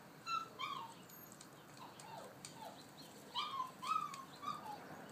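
Alaskan Malamute puppy whimpering in a string of short, high whines, each dropping in pitch; they are faint in the middle and grow louder near the end.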